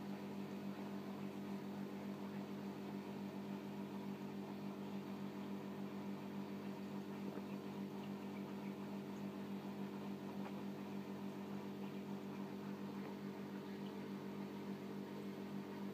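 Aquarium equipment running: a steady low electrical hum over a faint even hiss.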